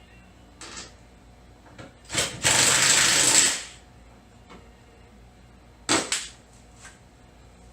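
Impact wrench hammering in one loud burst of about a second and a half, drawing the Corvette's rear leaf spring up into place, with brief shorter blips before and after.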